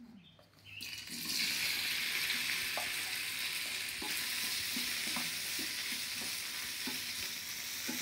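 Boiled potato cubes tipped into hot oil in a small non-stick frying pan: a brief clatter, then sizzling that swells about a second in and holds steady while they are stirred, with scattered light knocks of a wooden spatula against the pan.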